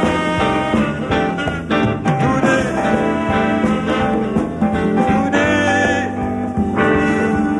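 Live calypso band playing an instrumental passage with a steady beat: electric guitar and bass guitar over a drum kit.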